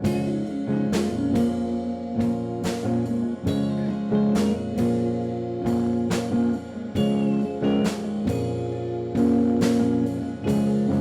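Acoustic guitar strummed in a steady chord pattern, with no singing: the instrumental introduction of a song.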